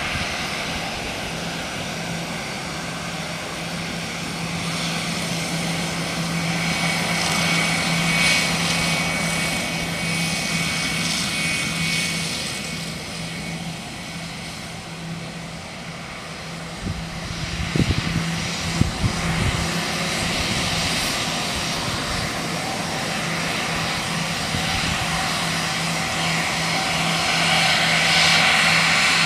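Cessna Citation X business jet taxiing, its two Rolls-Royce AE3007 turbofans running at low taxi power with a steady rushing hiss and a faint high whine. A few brief low thumps come about two-thirds of the way through.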